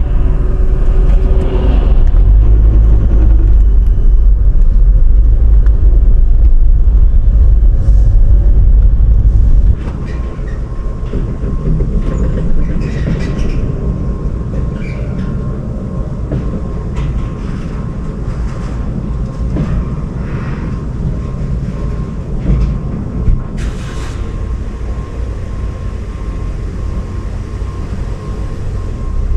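Steady road and tyre rumble of a vehicle driving on a highway. The rumble is heavy and deep at first, then drops sharply to a lighter, steady road noise about ten seconds in.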